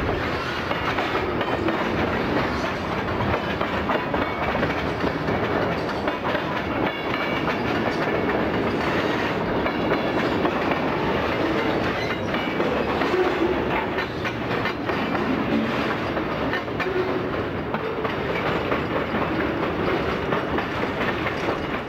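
Freight cars of a passing CSX train rolling by close at hand: a steady noise of steel wheels on rail, with scattered clicks. The sound cuts off abruptly at the very end.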